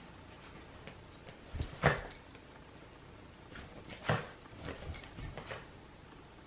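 Miniature poodle playing with a sock: short scuffles and knocks, a cluster about two seconds in, then a quick run of several more between about four and five and a half seconds.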